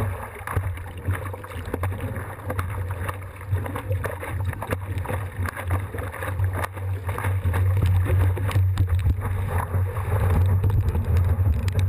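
Water rushing and wind buffeting a GoPro's microphone during a surf ride. A steady low rumble runs under many small knocks and splashes, growing louder toward the end.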